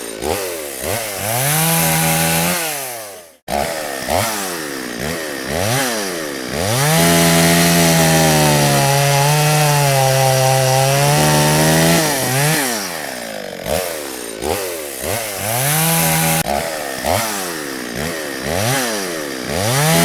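Chainsaw engine revving up and down over and over, cutting out for an instant about three seconds in. Midway it is held at high speed for about five seconds, its pitch sagging as it cuts into wood, then it goes back to short revs.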